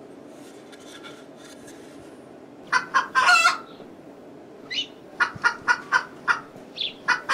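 Chicken-like clucking calls: a burst of calls about three seconds in, then a quick run of about five short clucks, with more calls near the end.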